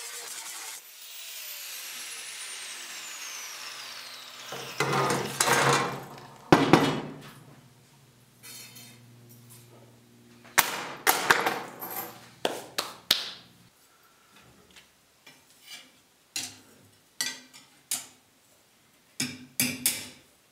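A power tool's motor winding down with a falling whine after being switched off, followed by irregular knocks and taps of wood being handled and struck; the loudest knock comes about six and a half seconds in.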